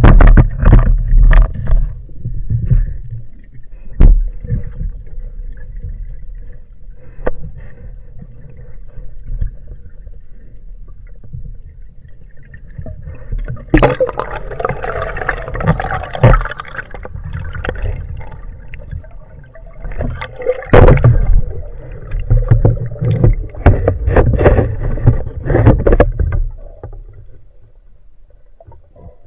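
Underwater sound through a diver's camera housing: knocks and thumps with low rumbling, then two stretches of rushing, bubbling noise about halfway through and again later.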